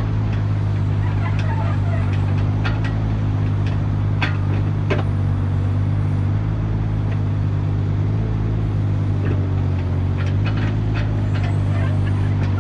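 The diesel engine of a construction machine running steadily at a constant speed, with a few sharp metallic clicks and knocks over it.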